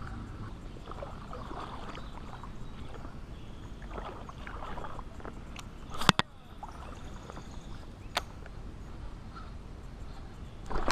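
Pond water sloshing and lapping around a wading angler, with a sharp double click about six seconds in and a smaller click about two seconds later.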